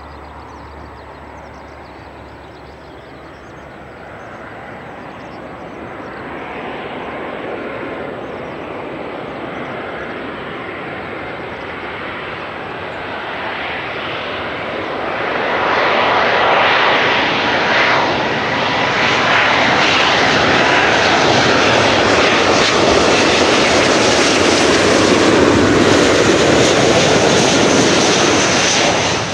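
Twin jet engines of a Boeing 777-200ER airliner on final approach, a rushing jet noise that grows steadily louder as the aircraft closes in and passes low overhead, with a faint thin whine in the loudest stretch.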